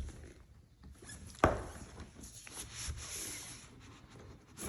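Cardboard and paper packaging being handled and opened, with soft rustling and scraping and one sharp knock about a second and a half in.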